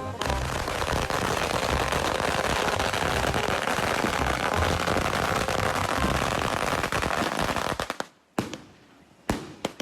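Dense, rapid crackling pops for about eight seconds, which then cut off suddenly, followed by a few sharp clicks.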